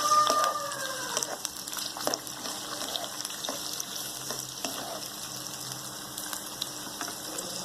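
Onions sizzling in hot oil in a kadai, with a spoon clicking and scraping against the pan as they are stirred. Loudest in the first second, then a steadier sizzle.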